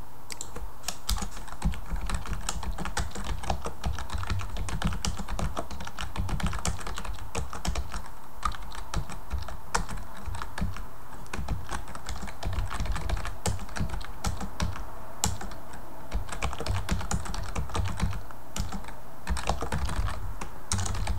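Typing on a computer keyboard: a steady stream of rapid, irregular key clicks with short pauses between runs.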